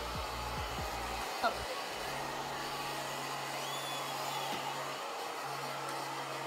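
Handheld hair blow dryer running steadily while drying hair, with a brief sharp sound about a second and a half in.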